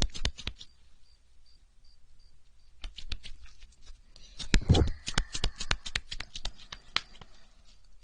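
Close-miked ASMR handling sounds: fingers rubbing and working on the microphone, making irregular crisp clicks and crackles. They thin out for a couple of seconds, then grow dense again just past halfway, with a soft thump.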